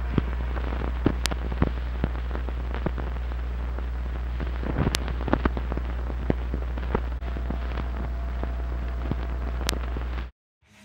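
Steady low electrical hum with hiss and scattered crackles and pops, the playback noise of an old restored video tape with no programme sound on it. It cuts off suddenly shortly before the end.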